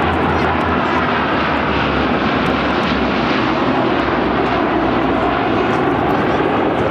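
Lockheed C-130H Hercules turboprop engines running loudly and steadily with a low drone as the aircraft flies past.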